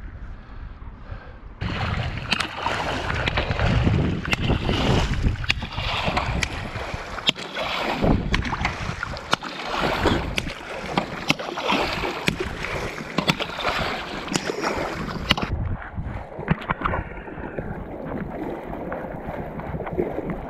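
Shallow water splashing and churning, loud and choppy with many sharp splashes from about 2 s in, easing off at about 15 s into quieter lapping and sloshing.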